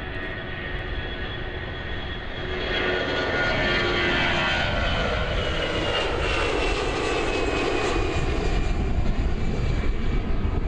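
Twin jet engines of an Airbus narrow-body airliner at takeoff power as it climbs out. The roar grows louder a few seconds in, with a high whine that slowly falls in pitch as the plane passes.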